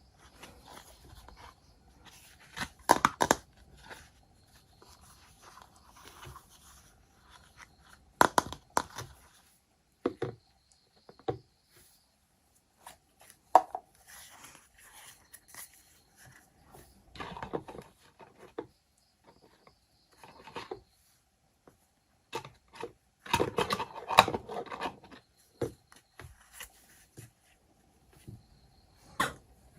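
Hands unboxing a toy kitchen set: packaging rustling and tearing, with scattered sharp clicks and knocks, the loudest clusters about 3, 8 and 24 seconds in.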